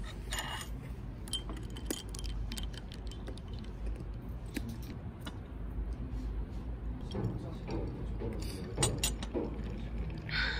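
Scattered small clicks and clinks of objects being handled, over a low steady room hum.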